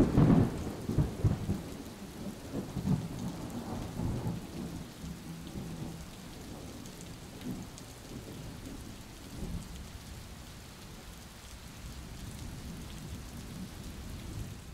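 Rain falling, a steady hiss, with low irregular rumbling gusts during the first few seconds that die away, leaving the rain alone.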